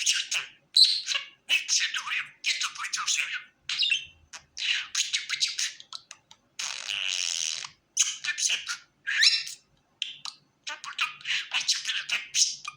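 Pet budgerigar chattering and warbling in quick bursts of high chirps, with a longer, harsher burst about seven seconds in.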